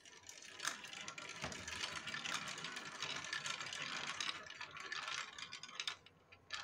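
Plastic balls rolling and rattling down the plastic spiral tubes and chutes of a Duplo-style brick marble run: a continuous rattle dense with small clicks for about six seconds, then a few last separate clicks as the balls come to rest.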